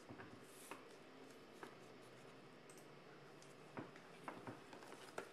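Near silence: room tone with a few faint, scattered clicks and taps, more of them in the last second and a half.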